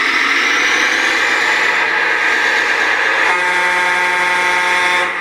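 An RC model truck sounds a steady, multi-tone truck horn for about two seconds, starting about three seconds in and stopping just before the end. Underneath it runs the steady whir of the model's drive.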